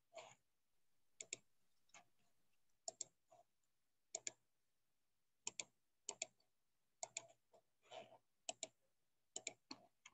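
Computer mouse clicking: sharp clicks, many in quick pairs, about one or two a second, over an otherwise near-silent room.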